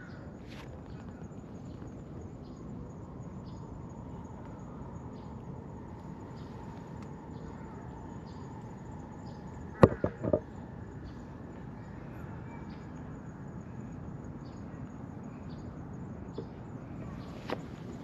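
Steady outdoor background noise with faint, regularly spaced high ticks. About halfway through there is a sharp click followed quickly by two short bumps.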